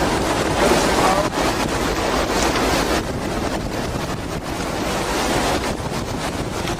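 Wind buffeting the microphone over steady sea and water noise on an offshore fishing boat, easing slightly about three seconds in.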